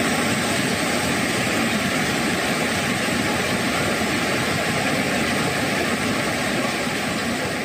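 Floodwater rushing past steadily, a dense, even noise with no breaks.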